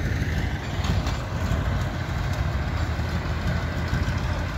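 Heavy vehicle engine running steadily, a continuous low rumble.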